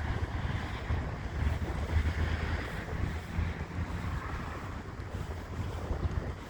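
Wind buffeting a phone's microphone, a fluctuating low rumble over a steady hiss of city street noise.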